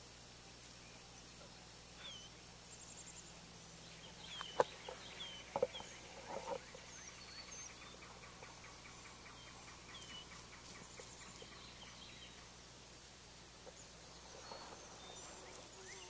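Wild birds chirping faintly in open country, short high calls scattered throughout. A few sharp knocks come between about four and six seconds in.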